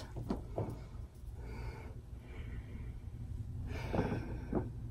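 A person sniffing a small scented jar held to her nose: soft sniffs, then a longer, louder sniff about four seconds in. Faint clicks near the start from handling the jar.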